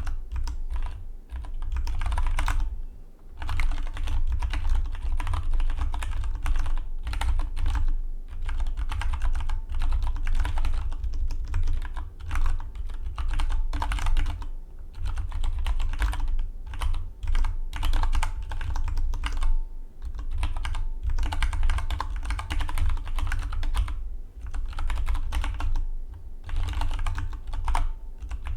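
Continuous fast typing on a Dygma Defy split mechanical keyboard: dense runs of key clicks, with short pauses every few seconds between bursts, and a deep thud under the keystrokes.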